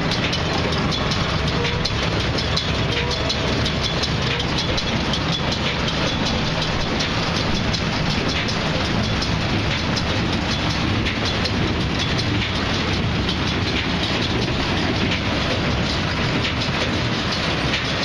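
Farm machinery running with a steady, loud mechanical clatter of rapid clicks and rattles over a low drone.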